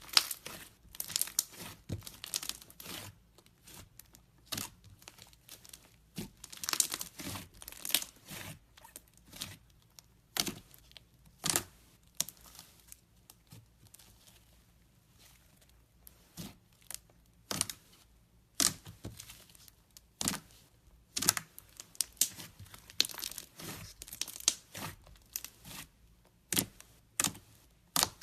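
Slime being squeezed and stretched by hand, giving irregular crackling and popping, with a sparser stretch about halfway through.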